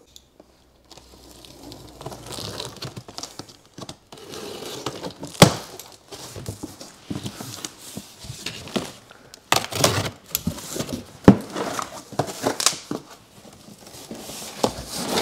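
Cardboard shipping box being opened: a utility knife slicing along the packing tape, then stiff cardboard flaps scraping and rustling as they are pulled open, with a few sharp knocks along the way.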